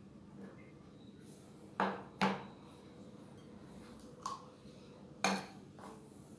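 Sharp metal clanks: an aluminium pudding tin knocked twice against the counter as it is set down, and a wire-mesh strainer clanking onto its rim about three seconds later.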